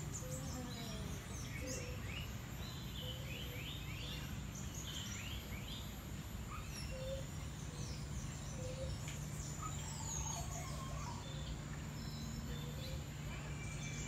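Mixed birds chirping and whistling in a walk-through aviary: many short, quick calls overlapping throughout, with a low short note recurring every second or two, over a steady low hum.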